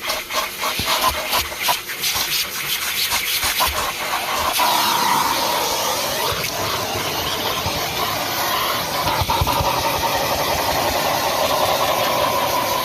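Numatic Henry Plus HVR200P vacuum cleaner running while vacuuming a car. It gives a steady motor whine over rushing air, with a run of sharp clicks and rattles in the first few seconds.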